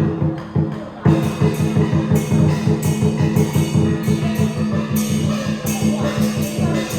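Chinese dragon dance percussion: a drum beaten in a fast, steady rhythm with cymbal crashes, picking up to full strength about a second in.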